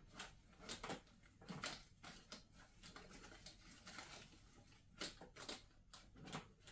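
Curtain grommets sliding and clicking along a metal curtain rod as they are pushed by hand, with the fabric rustling: a string of irregular short clicks and scrapes.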